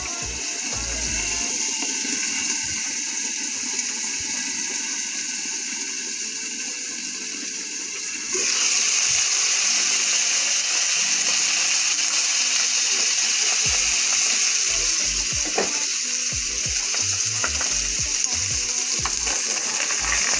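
Seasoned fish fillets sizzling in shallow oil in a frying pan, a steady crackling hiss. At first the pan is under a glass lid; about eight seconds in the sizzle jumps suddenly louder with the pan uncovered, and a few light clicks follow.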